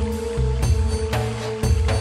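Background music with a deep bass line, a held high note and regular drum hits about every half second.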